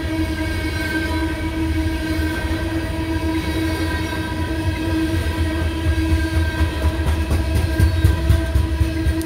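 Loaded coal hopper cars rolling past a grade crossing: a steady low rumble of steel wheels on rail with a sustained ringing tone over it. Sharp clicks of wheels over rail joints pick up about seven seconds in.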